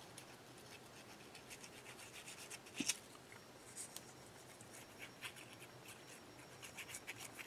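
Faint scratching and rubbing as a narrow paper strip is handled and a liquid-glue bottle's nozzle is worked along it, with one sharper click a little under three seconds in.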